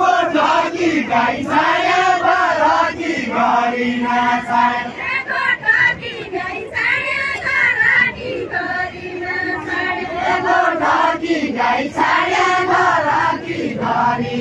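A group of women singing together in unison, phrase after phrase with short pauses between.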